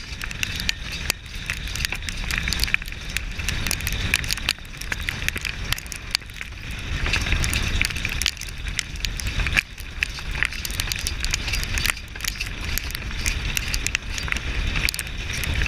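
Chuckwagon racing at a gallop, heard from on the wagon: wind rumbling on the microphone over a constant clatter of hooves, harness and wagon, with many sharp, irregular knocks.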